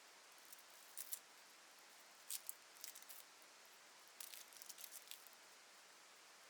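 Near silence over a faint steady hiss, broken by scattered soft clicks and crackles: a pair about a second in, a few more around two to three seconds, and a quick cluster about four to five seconds in.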